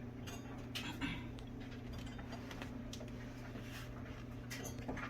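Faint scattered clicks and light taps from the sound bar and metal mounting bracket being handled into position, over a steady low hum.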